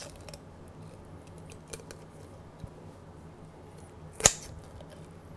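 Poultry shears cutting along a raw chicken's backbone: faint clicks of the blades, and one loud, sharp snap a little over four seconds in as the shears bite through bone.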